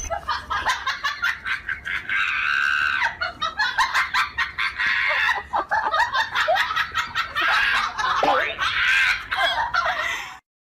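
High-pitched, cackling laughter in rapid choppy bursts that stops abruptly near the end.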